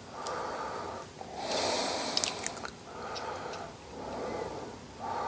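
A man breathing audibly close to the microphone, several slow breaths in a row, with a few light clicks partway through.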